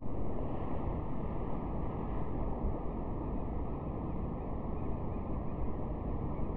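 Wind blowing across the microphone, a steady deep hiss with no distinct events.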